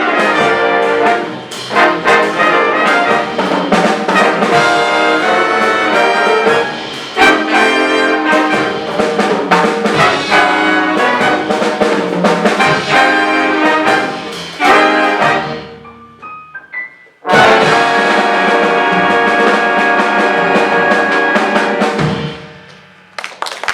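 Jazz big band with trumpets and trombones playing the closing bars of an up-tempo swing chart. Brisk ensemble figures break off briefly, then the full band holds a long final chord that cuts off. Applause starts near the end.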